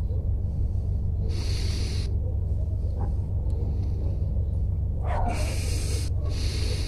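A person breathing out audibly near the microphone, two hissing breaths about a second in and about five seconds in, over a steady low rumble.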